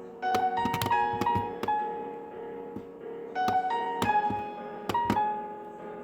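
Piano playing slowly: two short phrases of single notes, each struck note ringing on over a sustained lower note.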